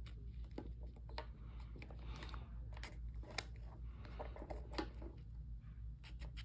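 A stack of trading cards being handled and squared up: irregular light clicks and soft rustles of card edges tapping and sliding, over a steady low hum.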